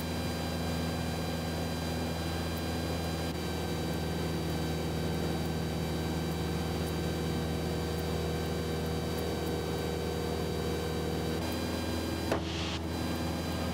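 Cessna 172's piston engine and propeller droning steadily in cruise, heard inside the cockpit. There is a brief click about twelve seconds in.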